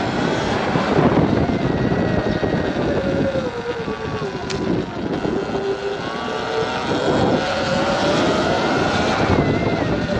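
A small motorbike's motor whining as it rides, its pitch rising and falling with speed, with wind rushing across the microphone.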